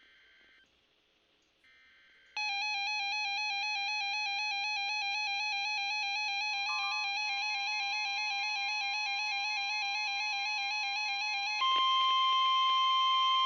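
Weather radio broadcast cut to faint hiss, then a loud warbling electronic alert tone for about nine seconds. About two seconds from the end it gives way to a steady single-pitched alarm tone, the NOAA Weather Radio warning alarm tone that comes before a new warning is read.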